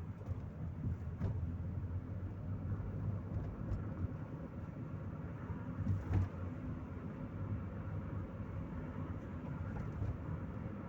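Chevrolet Corsa Maxx driving, heard from inside the cabin: a steady engine drone and road noise, with a short thump from the road about a second in and another about six seconds in.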